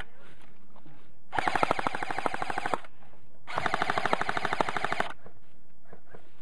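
Airsoft electric gun (AEG) firing on full auto: two bursts of about a second and a half each, with a rapid, even rattle of shots.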